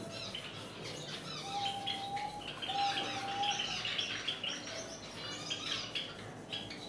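A room of cage birds, Java sparrows among them, chirping together in a dense chatter that is busiest in the middle. Two short held whistled notes come about a second and a half and close to three seconds in.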